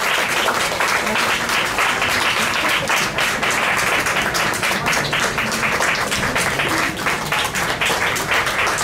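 Audience applauding: many hands clapping steadily in a live-music club.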